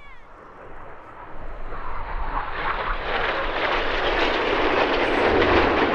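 BAE Hawk T1 jets making a low, fast pass, their jet noise growing steadily louder over a few seconds and then staying loud with a rough crackle.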